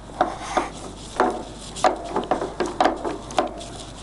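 Keiyo Seiki KM1800 metal centre lathe running, with irregular metallic knocks and clatter, two or three a second, each ringing briefly.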